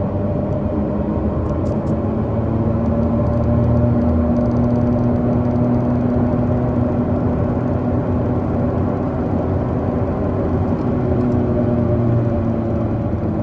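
Worn rear wheel bearing of a moving car: a steady humming drone over tyre and road noise, rumbling like driving over rumble strips. This is a sign that the bearing is failing.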